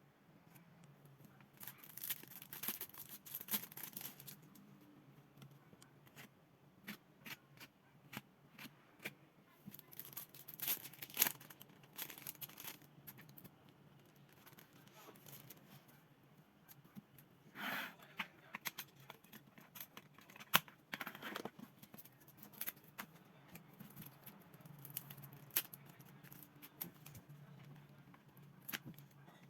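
Close-up handling of paper and plastic packaging: crisp rustles, taps and tearing, with denser spells about two, ten and eighteen seconds in.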